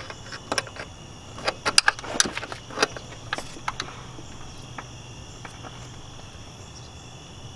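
Scattered sharp metallic clicks and ticks, most of them in the first four seconds, from a pulley installer tool being turned by hand to press a pulley onto an LS power steering pump shaft. A faint steady high-pitched whine and a low hum run underneath.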